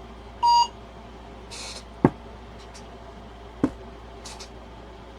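A short electronic beep about half a second in, typical of a phone barcode-scanner app reading a code. Then two sharp knocks about a second and a half apart, with brief soft rustles.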